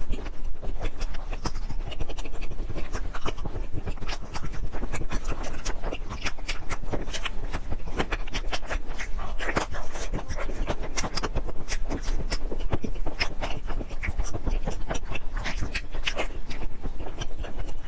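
Close-miked eating: a person chewing and smacking food, with dense irregular clicks and wet mouth sounds throughout.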